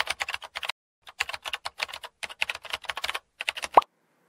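Typing sound effect: rapid runs of keyboard keystrokes with short pauses between them. A short rising tone comes near the end.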